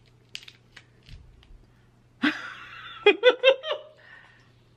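A short burst of laughter about two seconds in: a loud first 'ha' followed by four quick laughing pulses. A few faint clicks come before it.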